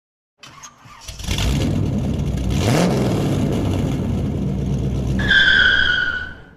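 A car engine starting and revving, its pitch rising briefly about three seconds in, then a high, slightly falling squeal for the last second or so before it cuts off.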